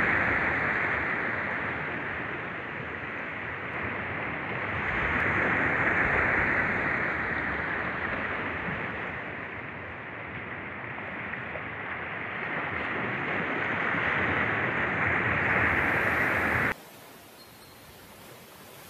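Small waves washing onto a sandy shore, a steady rushing hiss that swells and fades every several seconds. It cuts off suddenly near the end, leaving only a faint hiss.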